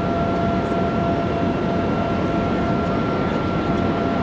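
Federal Signal STH-10 siren sounding a steady tone held at one pitch, over a loud low rumble of background noise.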